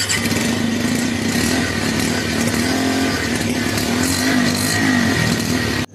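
Bajaj Pulsar 125's single-cylinder engine running steadily, its exhaust note holding a low pitch that wavers a little in the middle, then cutting off abruptly near the end.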